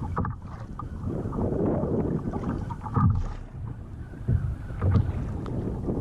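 Wind rushing over the microphone and choppy water slapping against the hull of a Hobie Pro Angler fishing kayak, with a few low thumps about three, four and five seconds in.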